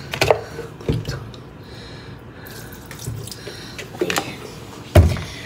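Water running in a stainless-steel kitchen sink, with a few sharp knocks from handling things at the sink, the loudest near the end.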